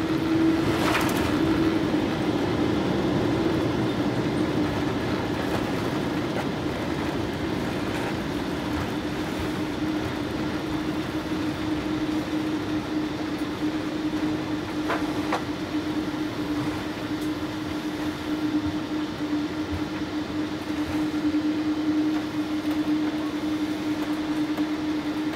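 Cabin noise of an airliner rolling along the runway after landing, heard from inside the cabin: a steady rumble of engines and wheels under a constant low hum, with two faint clicks, one about a second in and one about fifteen seconds in.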